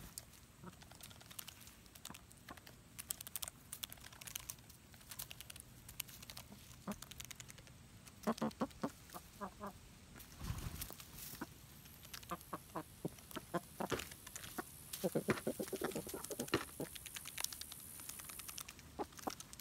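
Young Buff Orpington hens clucking in short runs of soft notes, about eight seconds in and again later, amid many sharp taps and clicks close to the microphone.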